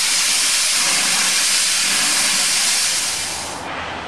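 Steam hissing loudly and steadily from Garratt G42, a 1926 Beyer, Peacock 2-6-0+0-6-2 narrow-gauge articulated steam locomotive standing in steam. The hiss cuts off sharply about three and a half seconds in, leaving a quieter outdoor background.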